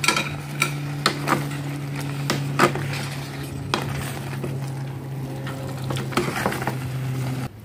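Utensil stirring in a pan of simmering tomato sauce with instant noodles, with scattered clicks and knocks against the pan. A steady low hum runs underneath and cuts off suddenly near the end.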